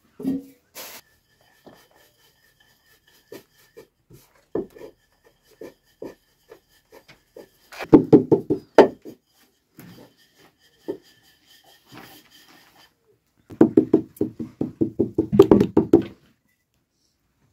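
Wooden rolling pin working dough on a floured metal tray, knocking and clattering against the metal. Scattered light taps give way to two runs of rapid knocking, about 8 seconds in and again near the end, the second the longer.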